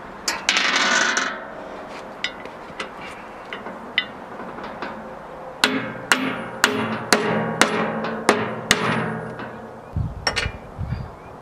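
Hammer tapping the hub of the sawmill's drive bandwheel to seat it and its new bearings on the spindle. A brief scrape and a few light clicks come first. About halfway through begins a quick series of sharp, ringing metal strikes, about three a second, and a few more strikes follow near the end.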